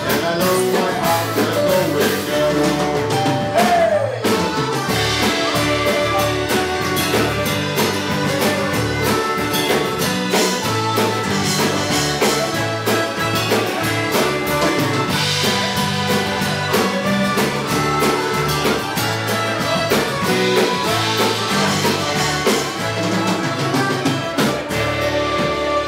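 Live Irish folk-rock band playing a tune: flute lead over piano accordion, electric bass, electric guitar, keyboard and drum kit keeping a steady beat.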